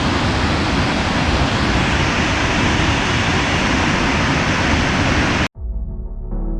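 Steady rushing of a waterfall's falling water, cut off abruptly about five and a half seconds in by background music with held notes.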